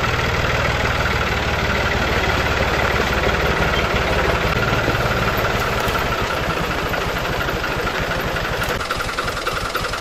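Small farm tractor's diesel engine running steadily with a rapid knocking beat, the tractor hauling cut bay-laurel branches.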